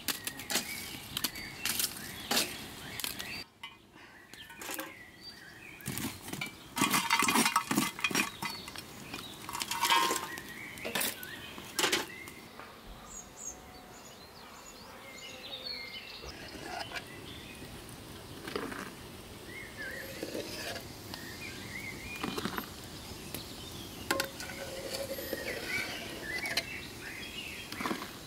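Lumps of charcoal clattering and clinking as they are tipped into a clay-lined stove, in several bursts of knocks. After that, quieter outdoor sound with short bird chirps.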